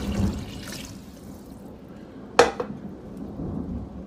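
Chicken broth poured into an enameled cast-iron Dutch oven over softened onions and peppers, splashing most in the first half-second. About halfway through comes a single sharp knock.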